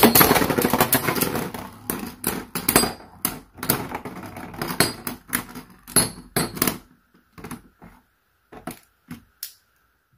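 Beyblade spinning tops clashing and clattering in a plastic stadium as one top bursts and its parts scatter. The dense rattle thins over the first few seconds into separate knocks as the remaining Roar Balkesh B7 spins and wobbles against the stadium, and only faint ticks are left near the end.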